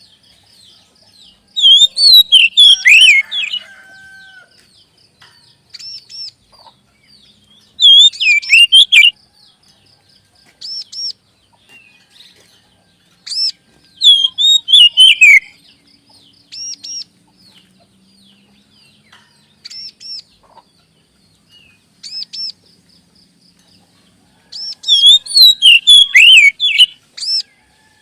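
Oriental magpie-robin (kacer) song: four loud bouts of fast, harsh, warbling phrases, separated by short clear whistled notes, over a faint rapid ticking chatter.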